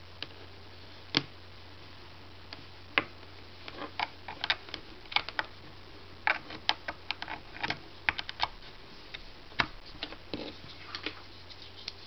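Irregular clicks and taps of a USB data cable being handled, its plastic plugs knocking and its USB-A plug pushed into a laptop's USB port around the middle. A faint steady low hum runs underneath.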